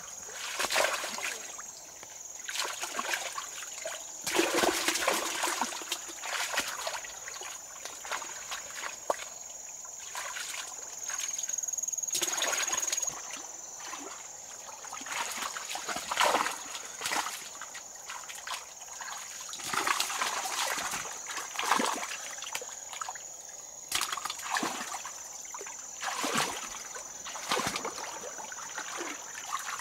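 Water splashing and sloshing in irregular bursts, with trickling between them, over a faint steady high tone.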